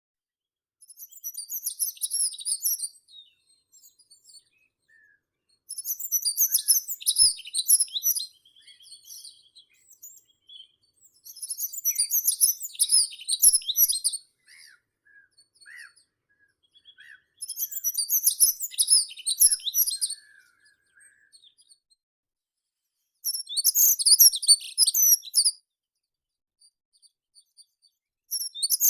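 Meadow songbird singing: a series of high, rapid, twittering song phrases, each about two to three seconds long, repeated roughly every six seconds. Fainter, lower single calls from other birds fill the gaps between phrases.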